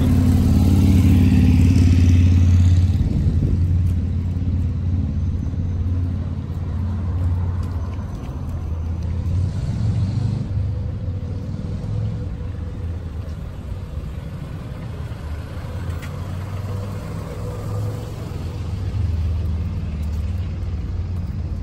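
Street traffic: a low engine rumble, loudest over the first three seconds, easing to a steady background rumble of cars.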